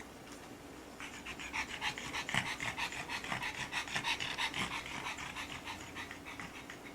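Pug panting rapidly: a quick, even run of short breaths, about eight a second, that starts about a second in and tails off near the end.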